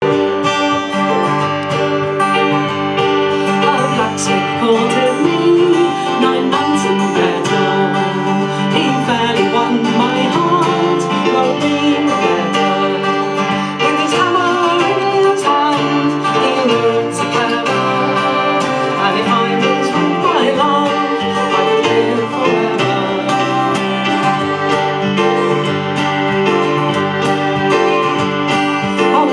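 A fiddle, a Yamaha keyboard and an acoustic guitar playing together as a live folk trio, continuous and unbroken.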